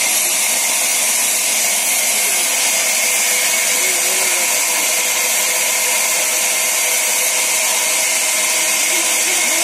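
Sawmill band saw running steadily, with a plank being fed through the blade. It makes a continuous, even machine noise that does not change.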